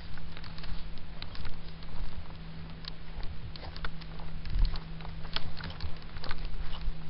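Irregular crunching and crackling of dry leaves and twigs underfoot as someone walks on a woodland trail, over a steady low hum.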